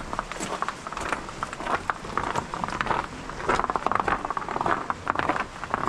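Footsteps crunching in snow: a dense, irregular run of short crunches.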